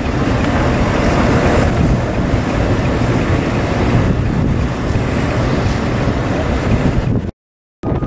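Blizzard wind buffeting the microphone as a loud, rough rush, over the running diesel engine of a JCB 3CX backhoe loader. The sound drops out for about half a second near the end.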